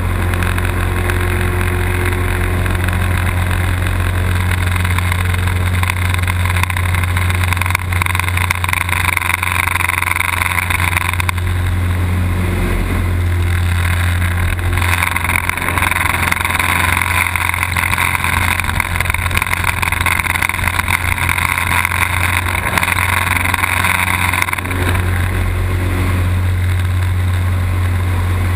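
Small aerobatic plane's piston engine droning steadily in the cockpit, under a rushing noise that swells louder twice, about a third of the way in and again through the middle and later part.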